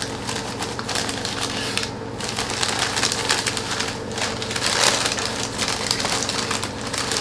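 Packing material rustling and crackling as it is pulled off and crumpled by hand to unwrap a potted houseplant, with a louder burst of crinkling a little under five seconds in.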